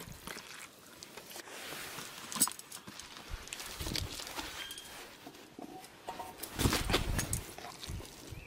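Faint handling noises from camp cooking with a pot: quiet rustling and a few light knocks, with a louder rustle about two-thirds of the way through.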